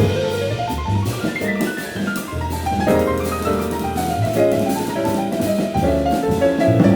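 Jazz trio playing, led by a C. Bechstein grand piano over drum kit with cymbals, with a quick falling piano run about two seconds in.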